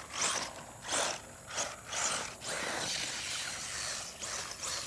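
Traxxas 1/16 Slash RC truck's electric drivetrain whirring in several short throttle bursts, then running steadily from about halfway through, its tyres churning loose dirt.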